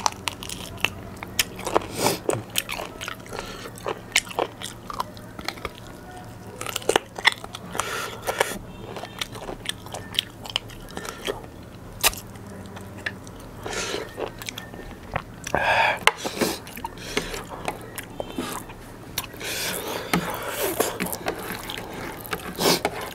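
Close-miked eating by hand: biting and chewing soft spicy chicken legs and biryani rice, a steady run of sharp mouth clicks with a few longer wet chewing stretches.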